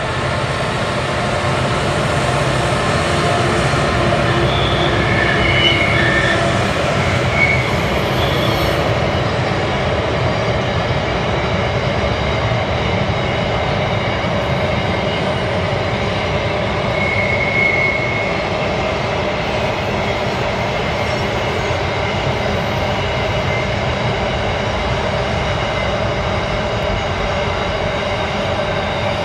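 Diesel-hauled freight train running across a river bridge: the locomotives' engines pass in the first several seconds, then the wagons roll by in a steady loud rumble of wheels on rails. Brief high wheel squeals come a few seconds in and again about two-thirds of the way through.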